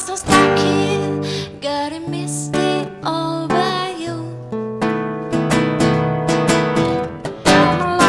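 Acoustic guitar strummed in steady chords, with a woman singing over it in places.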